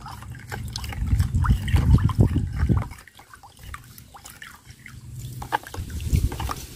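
A metal spoon stirring a homemade liquid fertilizer of rice-washing water in a plastic tub: sloshing with small clicks of the spoon. It eases off about halfway through and picks up again near the end.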